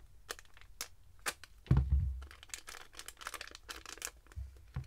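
Lure packaging being cut and torn open by hand: a run of sharp snips and clicks with crinkling, and one heavy thump about two seconds in.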